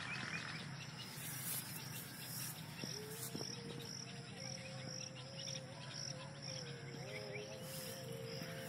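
Insects chirping in a steady, evenly repeating high pulse. From about three seconds in, a faint distant voice holds long, wavering notes, with a few brief rustles of leaves.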